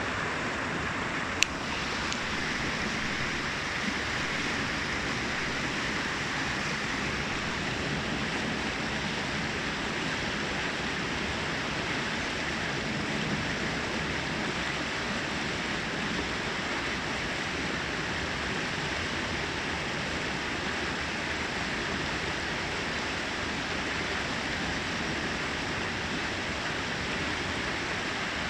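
Steady rush of water cascading over rocks in a small brook, with a single sharp click about a second and a half in.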